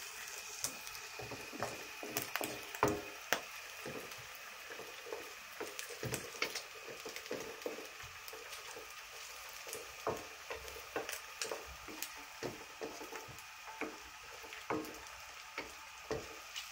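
Diced yam, mushrooms and dried prawns sizzling in a metal wok, stir-fried with a wooden spatula that scrapes and clicks against the pan many times over a steady frying hiss.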